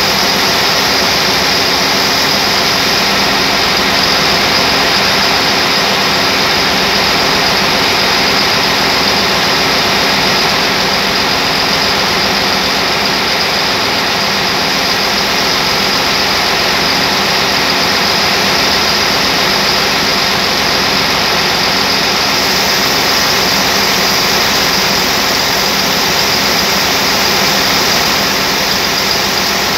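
Turbocharged engine running steadily at about 900 rpm, loud and even, with a steady high whine over it.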